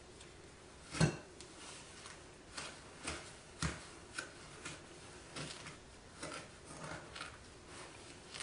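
A spoon knocking and scraping against a glass mixing bowl while softened butter and sugar are creamed by hand. It makes irregular clicks, the loudest about a second in.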